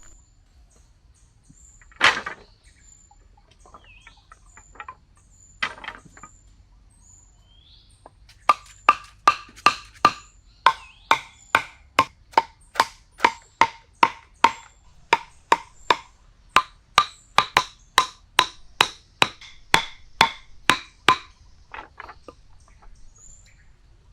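A loud single knock, another a few seconds later, then a long run of sharp, ringing knocks at about two or three a second that stops after about twelve seconds; faint high chirps sound between them.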